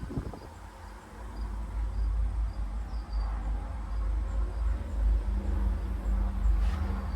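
Wind buffeting the microphone as a gusting low rumble, with faint, evenly repeated high chirps behind it. A low steady hum comes in about five seconds in.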